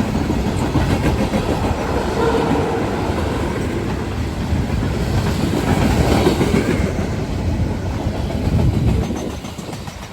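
Freight cars of a passing manifest train rolling by on the rails: a steady rumble with wheel clickety-clack that drops away about nine seconds in.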